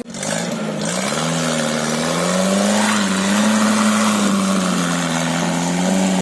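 UAZ Bukhanka van's engine running under load, its pitch climbing over the first couple of seconds as the revs rise, then holding steady.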